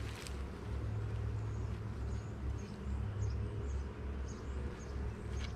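Steady low outdoor rumble, with a few faint high bird chirps in the middle.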